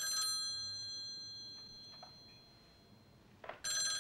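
Desk telephone's bell ringing: one ring dies away in the first half-second. After a pause of about three seconds, the next ring starts near the end.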